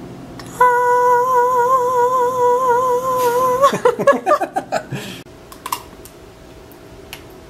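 A voice singing one long held note with a slight vibrato, then breaking into a quick run of wavering notes that fall in pitch. After that comes faint room tone and a small click.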